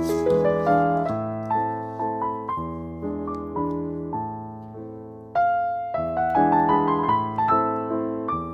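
Background piano music: a melody of struck notes that ring and fade, with a louder run of notes entering about five seconds in.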